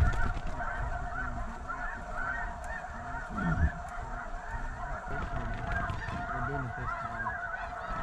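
A dense chorus of many snow geese calling at once: constant, overlapping high yelps and honks from a large flock.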